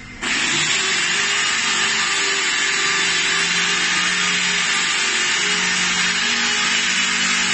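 Long-handled electric drywall sander running with its round pad pressed against a wall, a steady hissing machine noise that cuts in abruptly just after the start.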